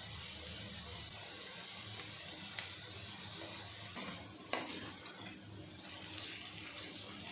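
Noodles sizzling in an open pressure cooker as they are stirred and tossed with a slotted metal spatula. A sharp knock of the spatula on the pan comes about four and a half seconds in, with lighter ticks before it.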